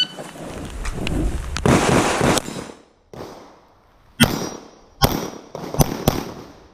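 9mm pistol shots from a PSA Dagger: after about two and a half seconds of rustling noise, the first shot comes about four seconds in, followed by three more in quick succession near the end.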